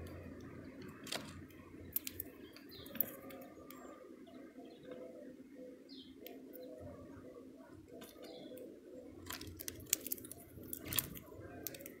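Small birds feeding at a seed feeder: irregular sharp taps and clicks from beaks and seeds, in clusters about two seconds in and again near the end, with a few faint high chirps over a steady low background hum.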